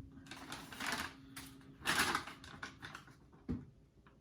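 Crinkling and rustling of plastic ration packaging being handled and opened, in short bursts with small clicks, and a single thump near the end.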